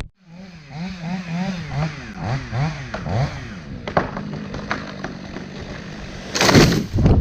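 An engine revving up and down quickly several times, then running at a steady speed. Near the end there is a loud, brief rush of noise.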